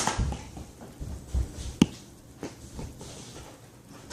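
Soft handling knocks with one sharp click a little under two seconds in.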